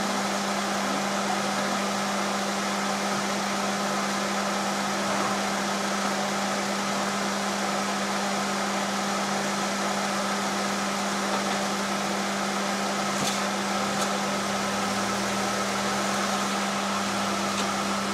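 Vehicle engine idling: a steady drone with a constant low hum and hiss over it, unbroken throughout.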